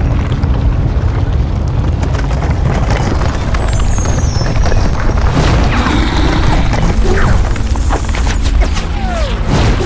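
Cinematic sound-design soundtrack: a heavy, continuous low rumble with booms over music. From about halfway, crackling and falling whooshes build on top of it.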